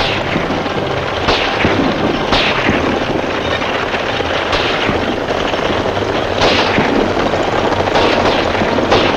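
Team of horses galloping with a stagecoach, a dense steady din of hoofbeats and rumble, with several revolver shots at irregular intervals.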